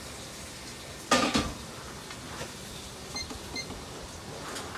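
A sudden loud clatter about a second in, followed by two short, high electronic beeps in quick succession, like a shop scale or payment device.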